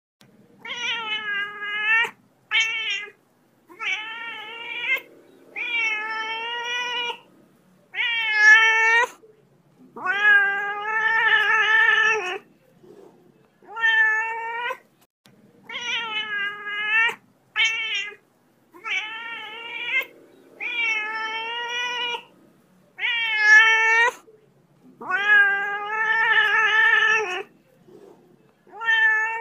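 Domestic cat meowing over and over, about fourteen drawn-out meows of one to two seconds each with short pauses between them.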